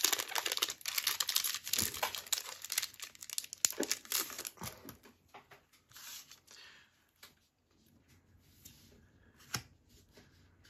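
A foil trading-card booster pack being torn open, its wrapper crinkling loudly for the first four seconds or so. After that come only faint rustles and a few soft clicks as the cards are handled.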